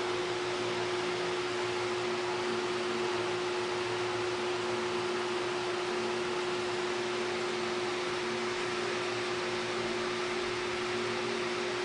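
A steady hum with a constant hiss, unchanging throughout, like a running fan or appliance.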